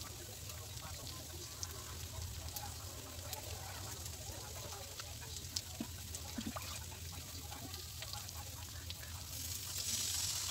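Sliced carrots, onion and bell pepper sizzling quietly in a steel wok, with scattered small crackles. Near the end, liquid poured from a mug hits the hot wok and the sizzle jumps to a loud hiss.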